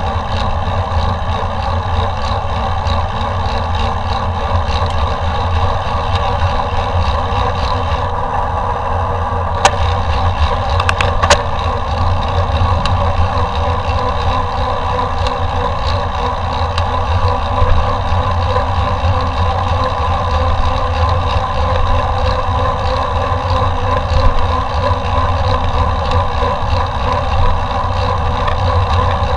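Loud, steady wind and rolling noise of a mountain bike being ridden, with a few sharp clicks about ten and eleven seconds in.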